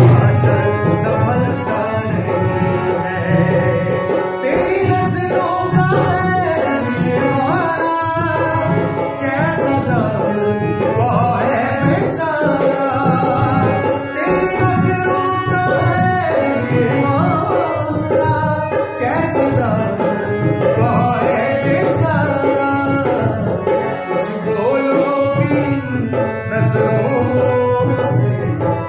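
A man singing a Hindi song, accompanying himself on a harmonium that holds steady chords under his voice.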